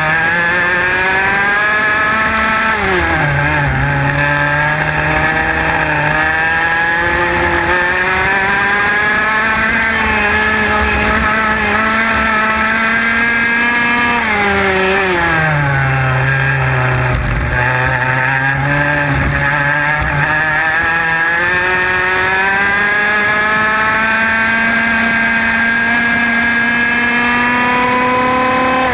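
IAME X30 two-stroke kart engine at racing speed, heard close up from onboard the kart. Its revs climb steadily along the straights and drop sharply twice under braking into corners, about two and a half seconds in and again about fourteen seconds in, before climbing again.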